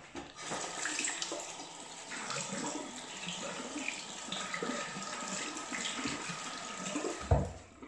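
Water running steadily from a tap into a sink, with a single thump near the end.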